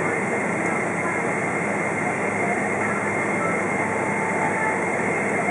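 Steady cabin noise of a Boeing 777-200 taxiing after landing, heard from a window seat beside the wing: its jet engines run at idle as an even rush with a faint high whine.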